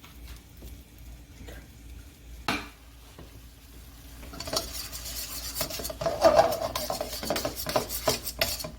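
A Marsala wine and stock pan sauce reducing in a frying pan, sizzling while a spatula stirs and scrapes the pan, with scattered clicks. It turns louder and busier with stirring from about halfway in.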